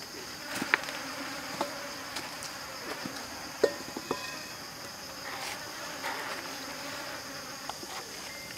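Steady high-pitched buzzing of insects in woodland, with a few sharp clicks and knocks, the loudest about a second in and again about three and a half seconds in.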